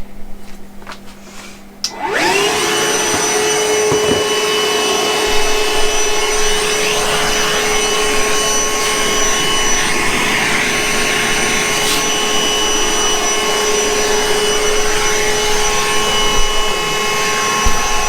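Milwaukee M18 cordless shop vac switched on about two seconds in. Its motor spins up quickly to a steady whine over rushing airflow and keeps running.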